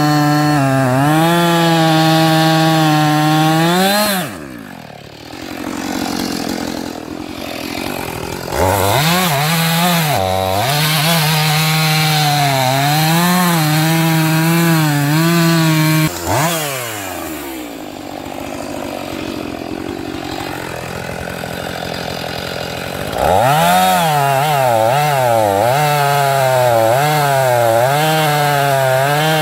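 Husqvarna 450 II two-stroke chainsaw cutting through a log at full throttle, its pitch wavering under the load of the cut. Twice the throttle is let off and the saw drops to idle for several seconds before revving back up into the wood.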